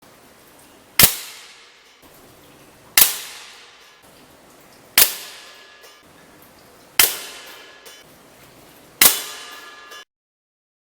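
Hatsan AT44 .177 PCP air rifle firing a string of five shots, evenly about two seconds apart, each a sharp crack with a short ringing tail.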